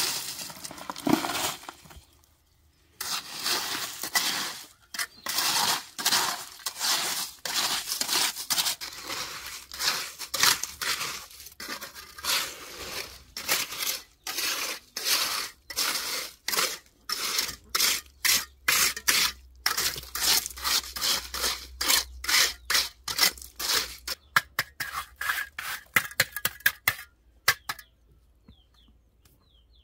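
A shovel scraping through sand and gravel in repeated strokes, about one or two a second, quickening near the end and then stopping abruptly. A few faint bird chirps follow.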